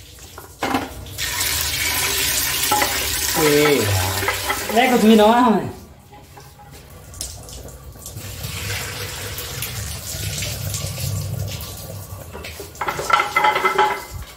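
Kitchen tap running into a sink, a steady splashing hiss that starts about a second in and turns softer about halfway through.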